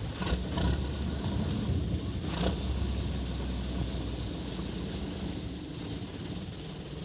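Fishing boat under way: a steady low engine rumble with wind buffeting the microphone and water rushing past the hull. The rumble eases a little about four seconds in.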